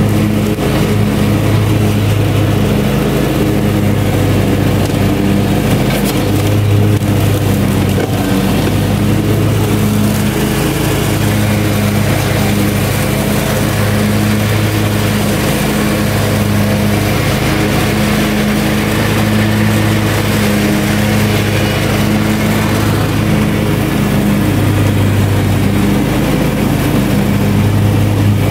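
Hustler Super Z60 zero-turn ride-on mower running steadily while mowing through deep grass, its engine drone swelling and easing every few seconds.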